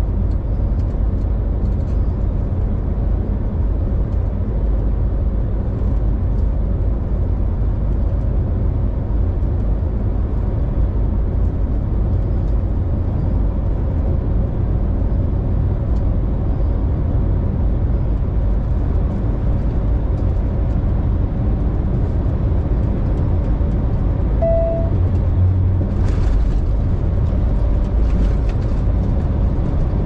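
Steady drone of a semi truck's engine and tyre noise, heard from inside the cab while cruising along the highway, with a single short beep about three quarters of the way through.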